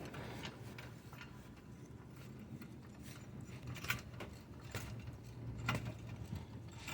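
Hydraulic jack being worked to lift the front subframe of a 2009 Mazda 5: faint, sharp mechanical clicks, roughly one a second in the second half, over a steady low hum.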